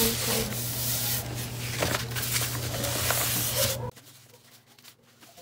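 Hands sliding and rubbing over a large sheet of paper on a tabletop, a rustling, scraping noise over a steady low hum. Both cut off suddenly about four seconds in.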